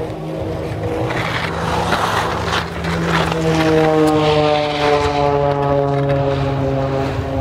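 Aerobatic propeller plane's engine droning in flight, its pitch slowly falling through the second half. A rushing hiss swells and fades about one to three seconds in.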